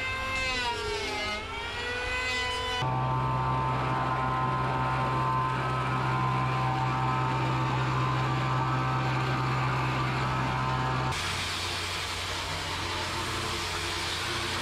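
Woodworking power tools on wooden planks. First an electric hand planer whines, its pitch dipping and recovering as it cuts. After about three seconds a power tool runs at a steady pitch. From about eleven seconds an angle grinder with a sanding disc grinds across the plank with a rougher, noisier sound.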